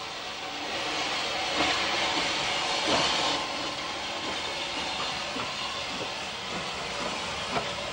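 Steam train passing close by: a loud hiss of steam for the first few seconds as the locomotive goes past, then the carriages rolling by with the wheels clicking over the rail joints.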